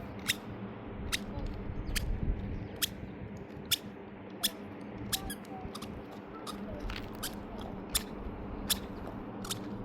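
Sharp clicks repeating at an even pace, about one every 0.8 seconds, over a low steady background with a few faint chirps.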